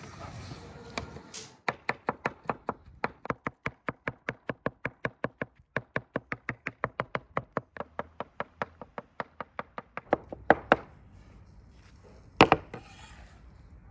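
Chef's knife chopping soft roasted vegetables on a wooden cutting board: a rapid, even run of blade knocks on the board, about five a second. It stops after about nine seconds and is followed by a few single, louder knocks.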